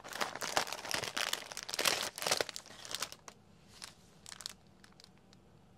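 Clear plastic packaging crinkling as it is handled, dense for about three seconds, then only a few faint crackles.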